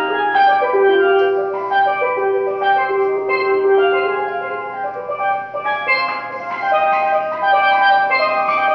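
Solo steelpan being played: a melody of struck, ringing notes, with one long held note in the first half and quicker runs of overlapping notes toward the end.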